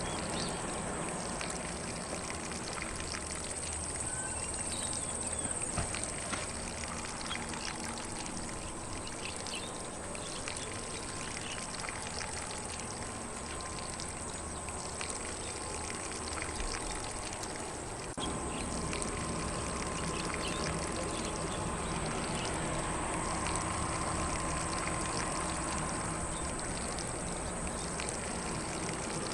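Lawn sprinkler spraying water onto grass: a steady hiss of spray with fine splashing, growing slightly louder about two-thirds of the way through. Faint birdsong in the background.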